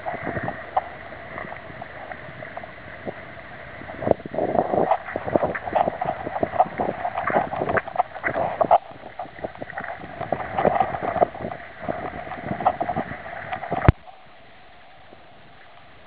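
Footsteps crunching and clacking on gravel and loose stones, mixed with knocks from the handheld camera. They come thick and uneven through the middle and end with a sharp knock, after which only a quieter steady noise is left.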